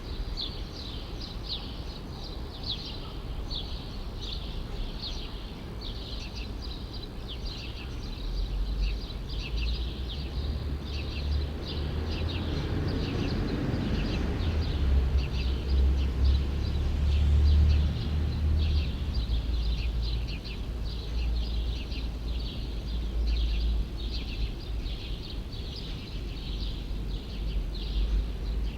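Small birds chirping in quick repeated short notes throughout, over a low rumble of city traffic that swells for several seconds in the middle, as of a vehicle passing.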